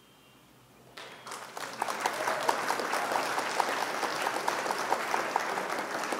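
Applause sound effect: a crowd clapping, starting about a second in and cutting off suddenly at the end. It marks the correct answer being revealed.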